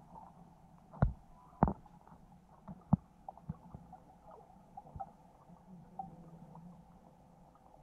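Muffled underwater sound picked up by a submerged camera: a low steady hum with scattered knocks and thumps, the loudest about a second in and again just after.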